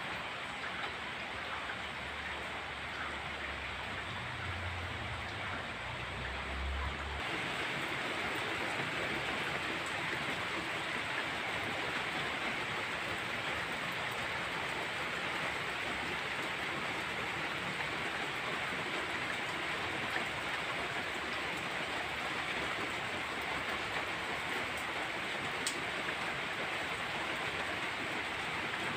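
Steady rain falling on a tiled roof and garden foliage, a constant hiss that grows louder about seven seconds in.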